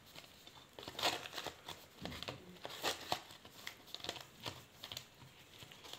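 Small irregular crinkles and clicks of hands twisting plastic-insulated wire leads while joining a ceiling fan's motor wires to the capacitor.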